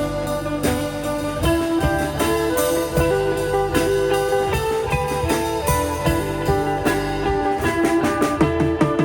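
Background music led by guitar, with a steady beat and bass.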